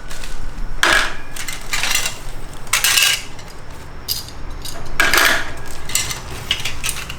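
Bird-cage parts and clips clinking and clattering as they are taken out of their packaging, in about five short bursts.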